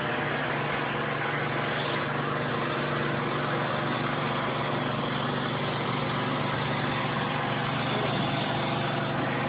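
A steady mechanical drone with a low hum and a constant hiss, running evenly without change.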